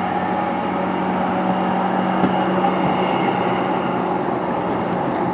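An E233-1000 series electric train stands at the platform, its onboard equipment humming steadily with several constant tones and no change in pitch.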